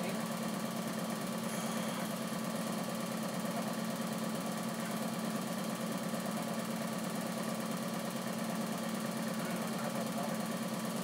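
A steady low mechanical hum with a fast, even flutter, unchanging throughout.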